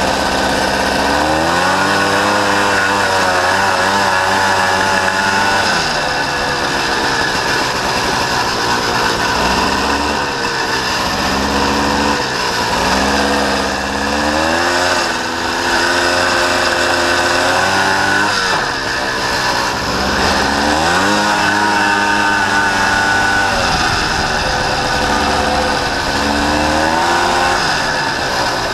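Honda Odyssey FL350R's single-cylinder four-stroke engine running under load, revving up and dropping back several times as the throttle is worked.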